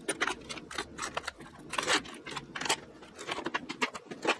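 Hard plastic and metal handling noise: lures with treble hooks being set into a clear plastic compartment tackle tray and its lid being shut, making a run of irregular clicks, knocks and short scrapes.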